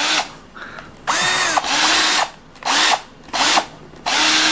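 Cordless drill with a brushed motor run free in about five short trigger pulls, each burst spinning up in pitch and winding down as it is released.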